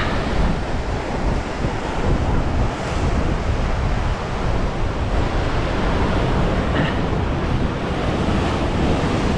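Sea surf washing and breaking over rock ledges, a steady rushing noise, with wind buffeting the microphone and adding a low rumble.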